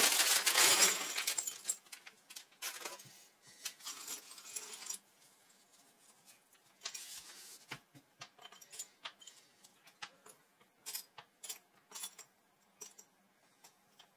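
Plastic bag of LEGO Technic parts rustling loudly as it is opened, then many small plastic pieces clicking and clattering onto the desk as they are spread out by hand.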